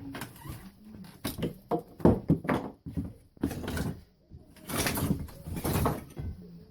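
Irregular knocks, clicks and creaks of demolition by hand on old window framing and siding backer board, with two longer scrapes about five seconds in.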